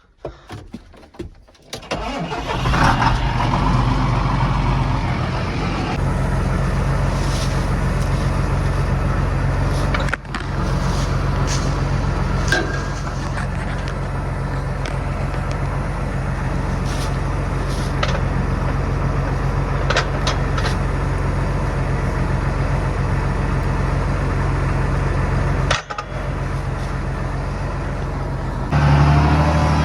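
Tractor engine starting: it catches about two seconds in and then runs steadily. It dips briefly twice, then rises in pitch and gets louder near the end as it is throttled up.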